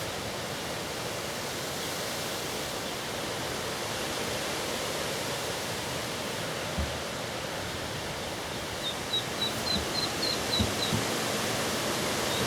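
Steady outdoor hiss, with a run of short high-pitched peeps from mallard ducklings starting about three-quarters of the way in, about two to three a second.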